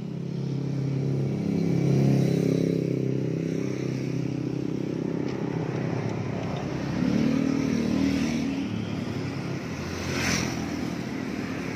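Motor vehicle engines from passing road traffic, swelling and fading twice as vehicles go by. A short sharp knock about ten seconds in.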